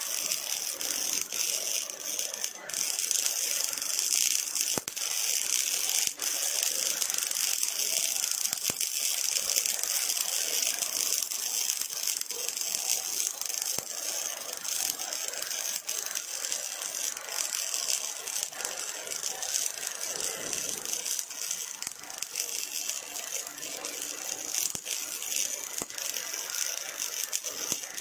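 Welding robot's electric arc crackling steadily as it welds a steel frame.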